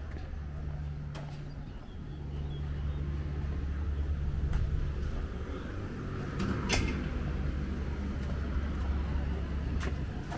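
City street traffic: a steady low rumble of vehicle engines, with a few short sharp clicks or knocks, the loudest about two-thirds of the way through.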